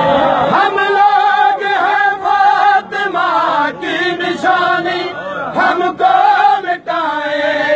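Male voices chanting a noha, a Shia lament, together in phrase after phrase of the refrain.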